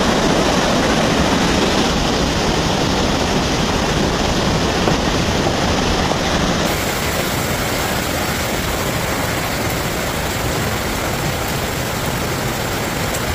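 Water rushing steadily and loudly, a continuous roar with no breaks; the hiss grows brighter about halfway through.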